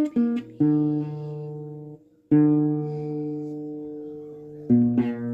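Guitar chords strummed and left to ring, each fading out over about two seconds before the next.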